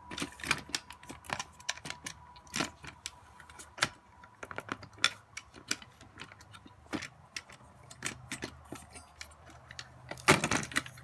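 Irregular clicks, taps and light rattles of a stock CPU heatsink being unclipped and lifted off a motherboard, with a louder clatter near the end.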